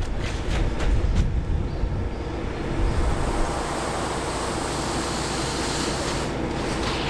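Concrete mixer truck's diesel engine running steadily under a rushing noise, with a few sharp knocks in the first second or so.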